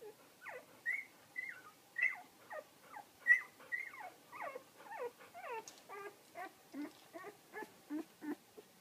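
Nine-day-old golden retriever puppies squeaking and whimpering while nursing: a quick run of short, high cries, each falling in pitch, about two or three a second.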